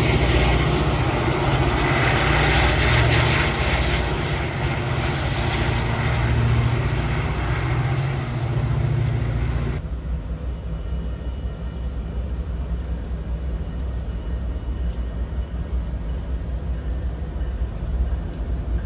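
Train with a diesel engine running, a steady low drone under a loud rushing noise. About ten seconds in it cuts off abruptly to a quieter, steady low rumble.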